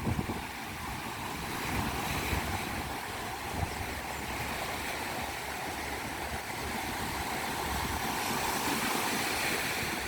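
Sea waves washing onto a beach: a steady rushing wash that swells a little in the last few seconds.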